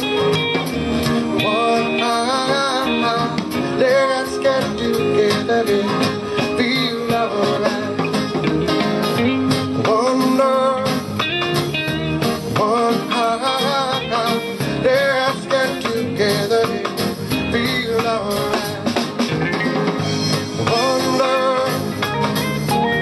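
Live band playing a reggae song, with guitar and singing.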